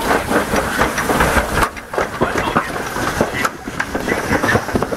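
Alpine-slide sled running fast down a metal chute, a continuous rumbling clatter of rapid knocks and rattles, dipping briefly twice.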